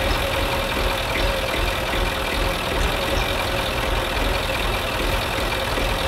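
Tractor engine idling steadily, an even low rumble with a faint steady hum above it.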